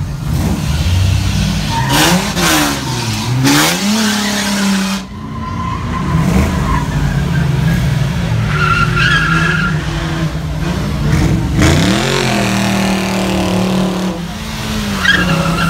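Motor vehicle engines running loudly and revving, their pitch dropping and climbing again twice, with short higher tones over them near the middle and the end.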